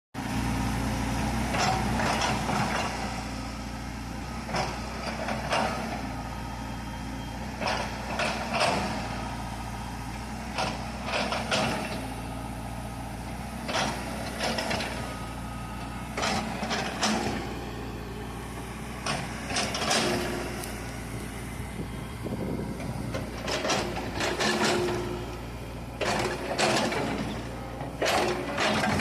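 Hydraulic excavator's diesel engine running steadily, with frequent short clanks and scrapes as the machine levels soil.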